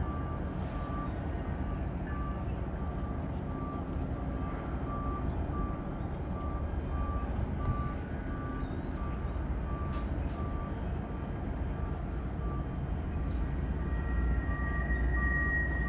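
Rail yard ambience: a steady low rumble of rail cars and locomotives, with a short electronic beep repeating about twice a second. Near the end a high, steady squeal comes in.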